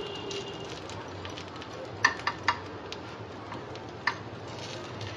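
Steel spoon clicking against a nonstick frying pan as a filled crepe is rolled over: three quick clicks about two seconds in and one more near four seconds, over a steady low hiss.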